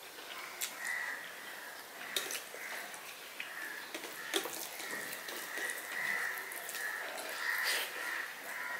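Close-miked eating sounds: fingers mixing rice with cooked leafy greens on a steel plate and chewing, with a few sharp clicks now and then.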